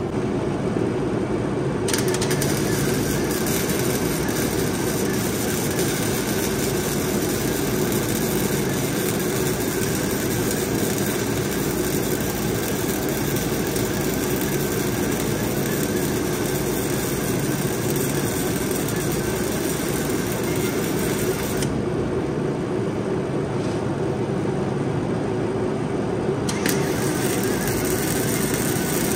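Flux-core wire-feed welder arc crackling steadily on steel, starting about two seconds in, stopping for about five seconds near the end and then striking up again, over a steady low hum.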